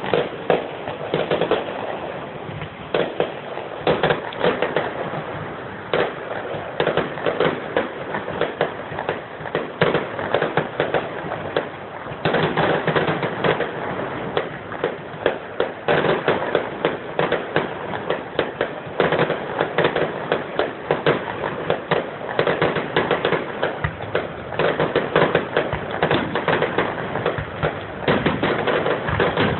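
Fireworks going off in a dense, unbroken crackle of rapid pops and bangs, many a second, heard through a phone's narrow-band recording.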